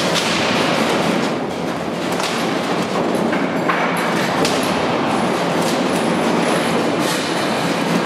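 Seismic shake table running under a full-scale three-storey wooden building during a simulated earthquake: a loud, steady mechanical rumble and rattle from the hydraulic actuators and the shaking structure.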